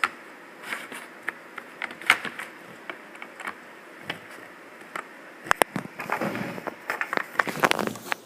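Small plastic toy figures being handled and moved on a surface: scattered light clicks and taps with rustling, a sharp pair of clicks about five and a half seconds in and a busier stretch of handling noise near the end.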